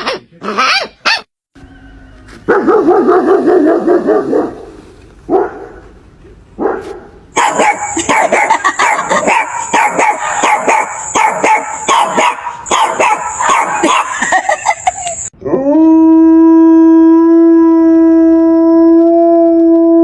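Series of dog calls one after another: a few short sharp barks or yips at the start, a stretch of rapid barking in the middle, then one long steady howl held for about five seconds near the end.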